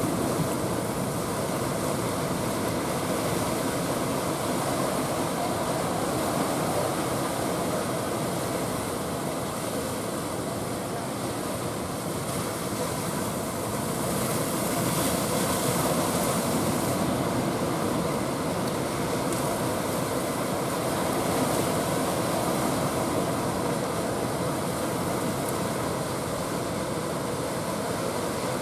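Heavy surf: large waves breaking one after another in a steady, unbroken rushing noise of water.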